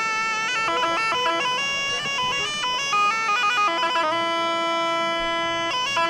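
Bagpipe playing a bourrée dance tune, fast running notes on the chanter with one long held note about four seconds in.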